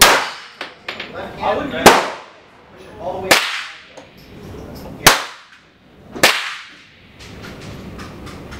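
Glock pistol with its factory barrel firing single shots at an irregular pace: five sharp reports about one and a half seconds apart, each trailing off in echo.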